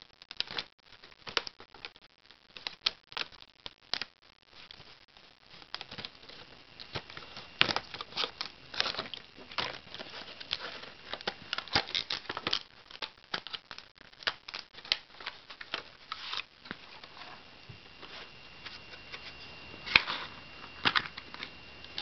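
Plastic retail packaging of Kingston laptop RAM modules being worked open by hand: irregular crinkling and crackling of stiff plastic with sharp clicks, busiest in the first two-thirds, then a few louder crackles near the end.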